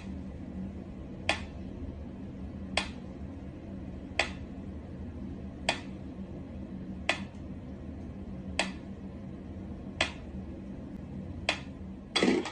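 Mechanical pyramid metronome ticking slowly, one sharp tick about every second and a half. Near the end a louder clatter as a cat pounces on it.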